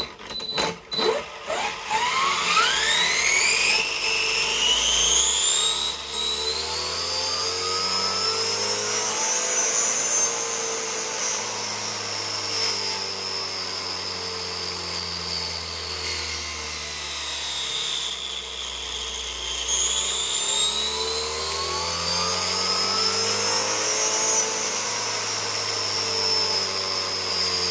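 Traxxas 2200kv brushless RC motors spinning up a 50-disc Tesla turbine runner: a few stuttering cogging clicks at startup, then a high electric whine that rises steeply over several seconds, wavers with the throttle, dips about two-thirds of the way through and climbs again, easing off near the end.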